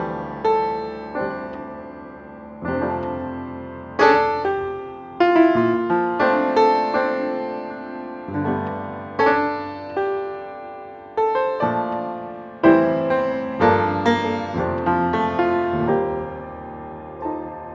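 Background piano music: slow, gentle chords and single notes, each struck and left to ring and fade.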